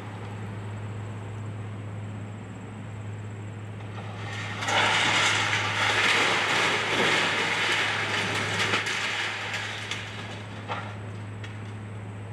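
High-reach demolition excavator running with a steady low engine hum. About four and a half seconds in, broken building debris let go from its grapple crashes and clatters down for about five seconds, then tapers off, with one last knock near the end.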